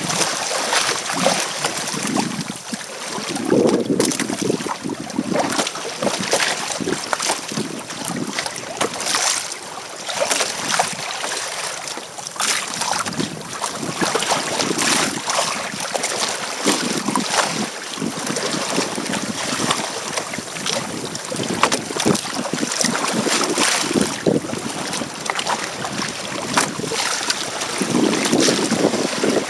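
Wind buffeting the microphone over the rush and slap of choppy water against the hull of a Hobie Tandem Island sailing trimaran under way, rising and falling in surges every second or two.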